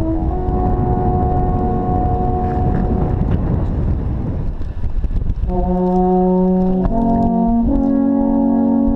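Three alphorns blowing long held notes together in harmony. The first phrase fades out about three seconds in, and after a short gap a new phrase starts, its chord shifting twice.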